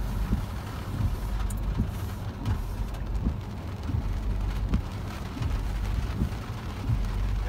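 2016 Toyota RAV4 driving over a rutted dirt forest track, heard from inside the cabin: a steady low road rumble with tyre noise and frequent small irregular thumps as the wheels and suspension take the bumps.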